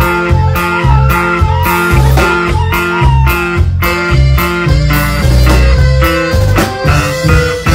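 Live band playing an instrumental passage: guitars and bass over a steady, even beat, with a lead line of bent, sliding notes.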